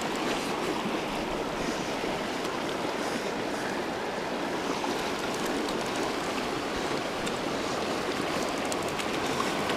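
Fast, shallow mountain creek running over rocks in a whitewater riffle: a steady, even rush of water.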